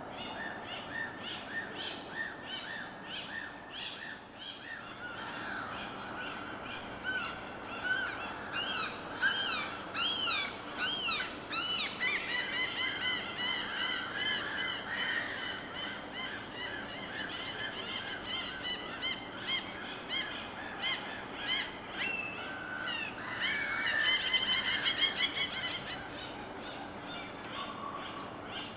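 A chorus of birds calling and singing at once: repeated chirps and quick rising-and-falling notes, with dense trilling passages in the middle and again near the end, over a faint steady wash of background noise.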